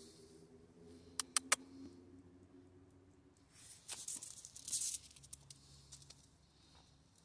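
A dog's claws scrabbling and skittering on icy asphalt: three sharp clicks a little over a second in, then a longer scratchy burst about four to five seconds in, over a faint steady hum.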